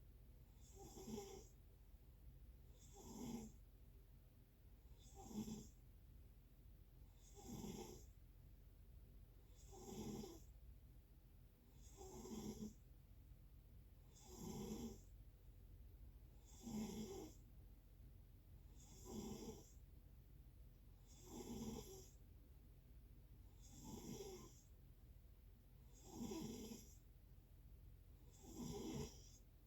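A sleeping person snoring faintly in a steady rhythm: thirteen short snores, about one every two and a quarter seconds.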